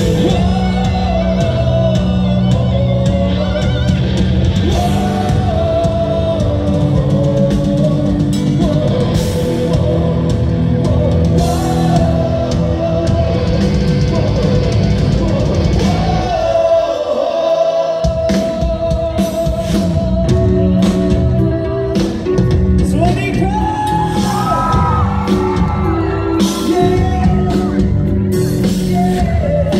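Rock band playing live with a lead vocal, recorded on a smartphone's microphone. The bass and drums drop out for a moment about sixteen seconds in, then come back in under the singing.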